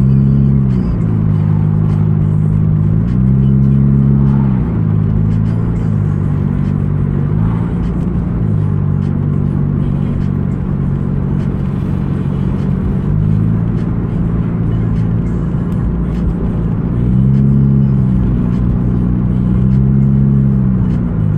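Car engine and road noise heard from inside the cabin while driving: a steady low drone whose pitch swells up and back down a few times with the car's speed.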